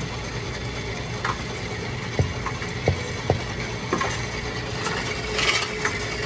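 Coinstar coin-counting kiosk running with a steady low mechanical hum, and a few short light knocks about two to three and a half seconds in.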